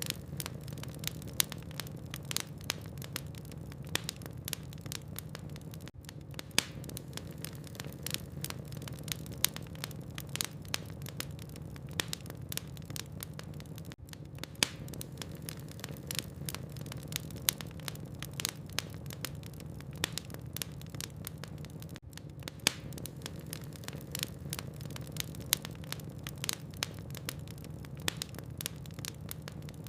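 Log fire crackling in a fireplace: frequent sharp pops and snaps, several a second, over a steady low rumble of the burning wood. The sound dips briefly about every eight seconds.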